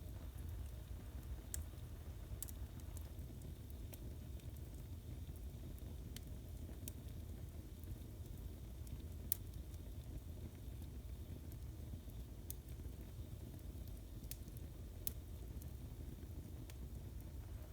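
Fire burning in a fireplace: a steady low rumble with irregular sharp crackles and pops, the loudest pop about halfway through.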